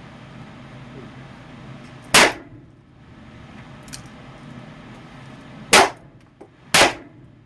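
Three loud handgun shots fired in an indoor range: one about two seconds in, then two more about a second apart near the end. Fainter pops come between them.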